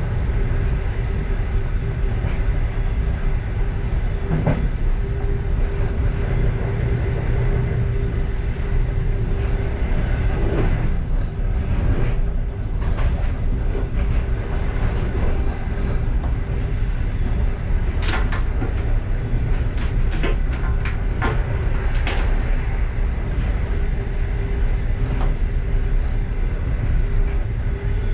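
Passenger train running, heard from inside the last carriage: a steady low rumble with a faint steady hum. Partway through comes a quick series of sharp clicks and knocks from the wheels and carriage.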